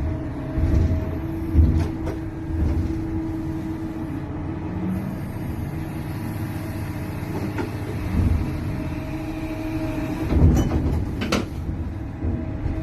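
Large excavator's diesel engine running steadily, with a few sharp metallic knocks, the loudest about ten to eleven seconds in.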